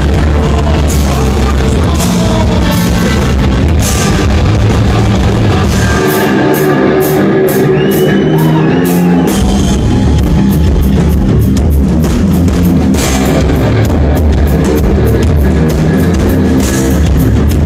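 Live rock band playing loud, with distorted electric guitar and a full drum kit. About six seconds in, the low end drops out for roughly three seconds under quick cymbal strikes, then the full band comes back in.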